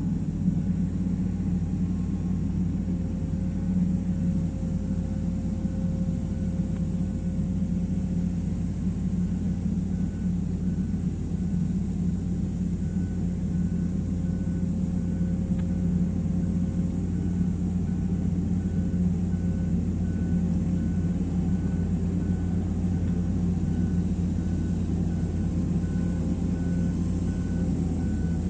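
Heavy diesel engine of an excavator running steadily. From about halfway through, a faint beep repeats at an even pace.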